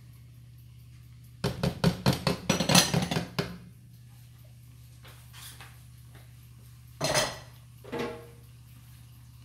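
Kitchen utensils clattering against pots and dishes: a quick run of taps and clinks lasting about two seconds, then two single clanks a few seconds later, the last one ringing briefly.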